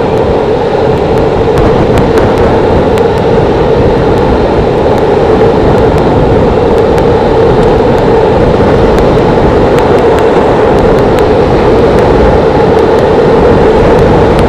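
Skateboard wheels rolling fast down an asphalt hill, with wind rushing over the microphone: a loud, steady roar that holds even throughout.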